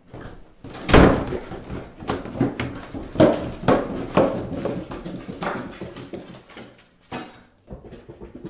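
Footsteps going down a staircase, a string of irregular thuds, with a loud bang about a second in.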